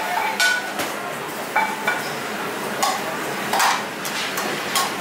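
Metal kitchenware clinking and knocking: tongs, pans and a steel lid handled at a commercial grill, a handful of sharp clinks, a couple ringing briefly, over a steady kitchen background rush.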